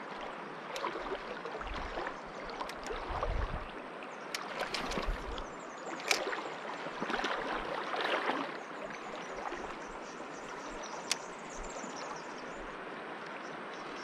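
Steady rush of a shallow, fast-flowing river, with a few sharp clicks over it.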